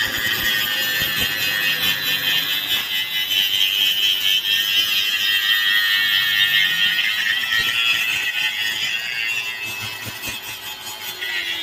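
Stick-welding arc: a steady high hiss and crackle with a shrill whine, easing slightly near the end.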